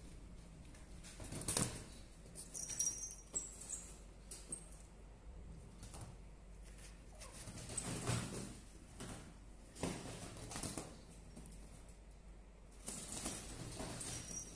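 Irregular rustling and soft knocks as a kitten moves about on the floor of a wire-mesh playpen, with a brief high squeak about three seconds in.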